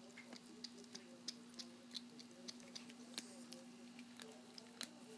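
Small long-haired dog chewing a raw chicken neck: irregular crunching clicks as its teeth work the bone, several a second, over a steady low hum.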